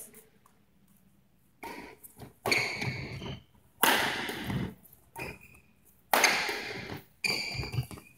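Badminton rally: after a second and a half of quiet, about six sharp racket strikes on the shuttlecock, roughly one a second, each echoing in the hall.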